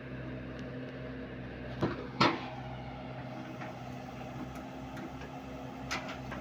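A motor running at a steady hum, with two sharp clunks about two seconds in, the second the louder, and a lighter knock near the end.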